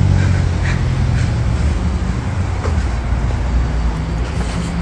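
Bus engine running with a low, steady hum close by, over general street traffic noise.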